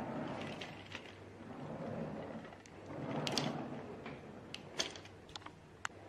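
A hard-shell plastic suitcase being handled and moved, with two swells of rubbing and scraping noise followed by several sharp clicks of its plastic and metal parts in the second half.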